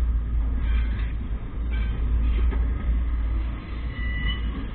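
Slow double-stack intermodal freight train rolling past: a steady low rumble of wheels and well cars on the rails.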